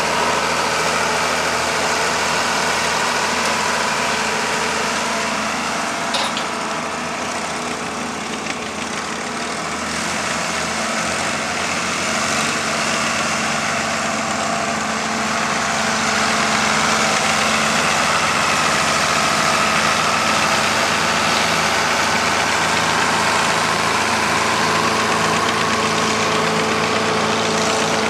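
Old farm tractor engines idling, a steady running note that gets a little louder about halfway through.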